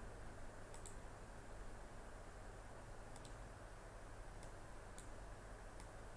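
Computer mouse clicks, faint and scattered, some in quick pairs, over a steady low hiss and hum.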